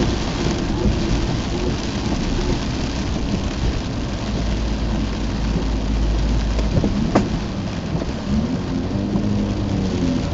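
Heavy rain beating on a car's roof and windscreen, with tyres hissing through standing water, heard from inside the cabin of a Mazda RX-8. Near the end the car's rotary engine comes through, its pitch rising and falling; a single sharp click about seven seconds in.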